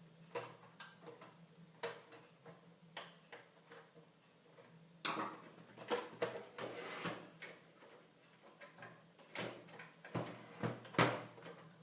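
Scattered clicks, taps and knocks, with a scraping rustle about halfway through, from hands handling a PlayStation 3 Fat's power supply unit and metal case during reassembly. The loudest knocks come near the end.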